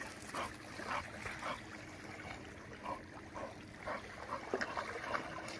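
Lake water lapping and splashing softly in short, irregular bursts, a few each second.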